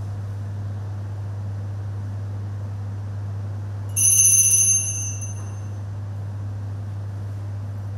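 Altar bells shaken once, briefly, about four seconds in: a bright jingling ring that dies away within about a second, marking the priest's communion from the chalice. A steady low hum underneath.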